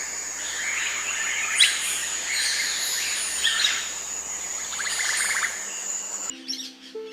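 Oropendolas calling in the rainforest: loud rising calls about every two seconds over a steady high-pitched insect whine. About six seconds in, the forest sound cuts off and soft music with held low notes takes over.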